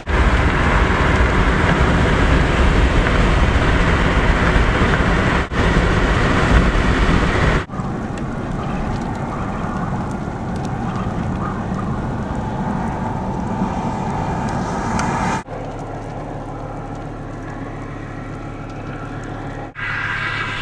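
Steady rushing wind and vehicle noise, heaviest and deepest for the first eight seconds, then lighter, breaking off abruptly several times as the recording cuts between short clips.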